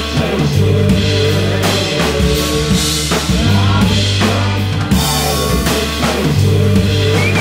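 Live rock band playing an instrumental passage: electric guitar, electric bass with long held low notes, and a drum kit.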